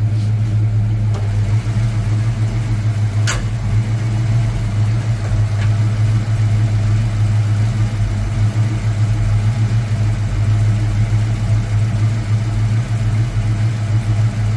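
Fox-body Ford Mustang engine idling steadily, warming up after months parked, with a ticking that the owner takes for a lifter. A brief sharp sound about three seconds in.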